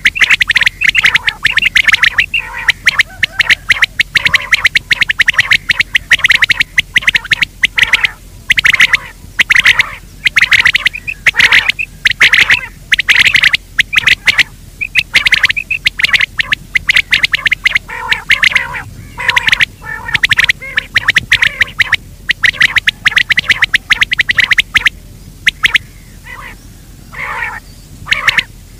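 Recorded game-bird calls played back as a hunting lure: loud, rapid, harsh calls repeated almost without pause, with brief breaks about 8 and 25 seconds in.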